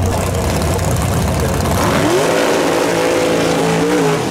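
A drag car engine idling low and steady, then about two seconds in a drag racing engine revs up sharply and is held at high revs for about two seconds during a burnout, dropping off near the end.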